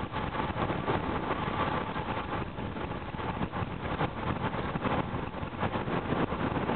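Wind rushing over the microphone of a bicycle speeding downhill: a steady rushing noise that keeps flickering louder and softer.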